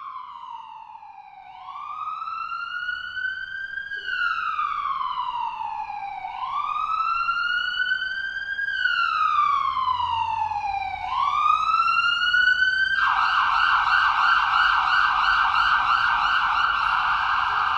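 Ambulance siren sounding a slow wail, its pitch rising and falling about every four to five seconds, then switching about thirteen seconds in to a fast yelp. It grows louder through the first dozen seconds.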